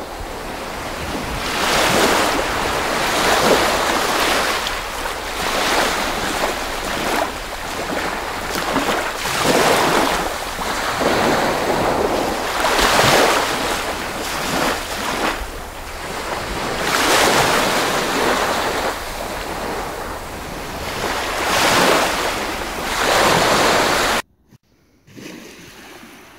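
Sea waves washing onto the shore, the surf swelling and fading every few seconds. The sound cuts off abruptly about 24 seconds in.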